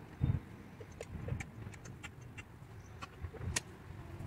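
Quiet outdoor background: low wind rumble on the microphone, with a few faint, light clicks scattered through it.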